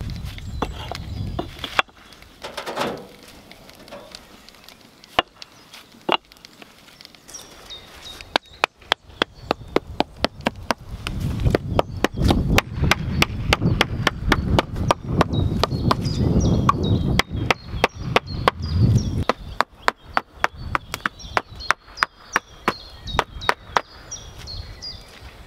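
Hatchet striking concrete: a few separate sharp knocks at first as a concrete paver is chipped, then from about eight seconds in a fast, steady run of sharp taps, several a second, on the surface of a cured concrete slab.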